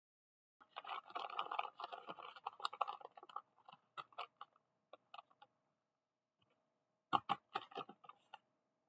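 Blind-bag plastic packaging crinkling and crackling in the hands as it is opened: a dense run of crackling for about three seconds, then scattered crinkles, then a louder burst of handling with a few thumps near the end.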